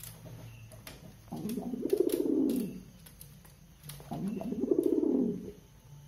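Domestic pigeon cooing twice, each coo a low call about a second and a half long that rises and then falls: a male's courtship coo, the bird being in breeding condition.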